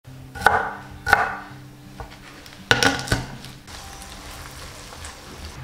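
Several sharp knocks with short ringing tails: one about half a second in, another about a second in, then three in quick succession near three seconds, over a faint steady low hum.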